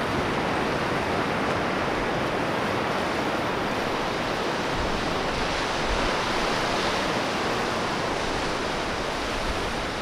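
Surf breaking and washing up a sandy beach: a steady, even rushing hiss of waves.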